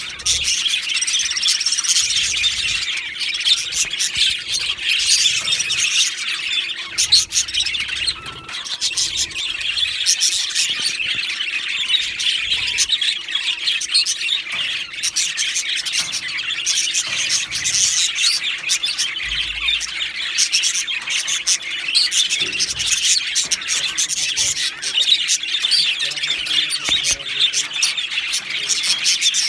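Two male budgerigars (budgies) warbling and chirping: a continuous, fast, high-pitched chatter full of quick clicks and squawks, without a break.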